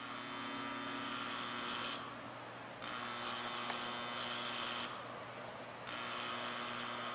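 Faint electric-motor whirring that runs in stretches of about two seconds with short pauses between them, over a steady low hum.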